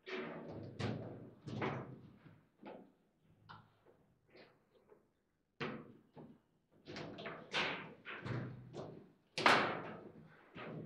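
Table football (foosball) in fast play: a string of sharp, irregular knocks and thuds as the ball is struck by the plastic men and the rods bang against the table, the hardest hit near the end.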